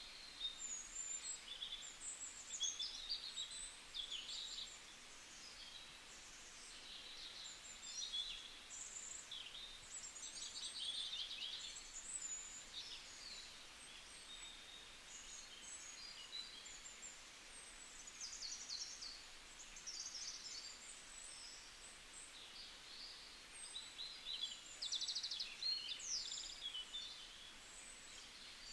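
Several small birds singing and chirping in a forest, short high trills and twitters coming in overlapping clusters with quieter gaps, over a faint steady background hiss.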